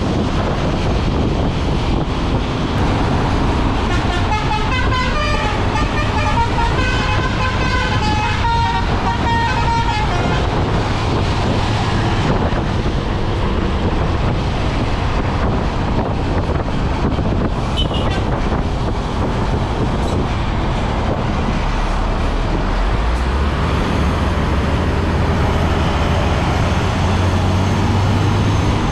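Basuri 'telolet' musical bus horn playing a quick tune of stepped, changing notes for about six seconds, starting about four seconds in, over the steady running of the bus engine and road noise. A deeper engine note comes in over the last few seconds.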